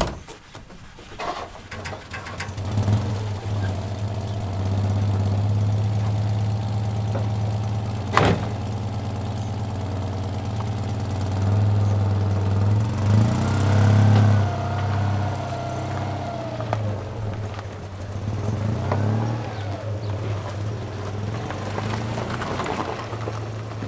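A motor vehicle's engine running steadily at low speed, with a single sharp knock about eight seconds in.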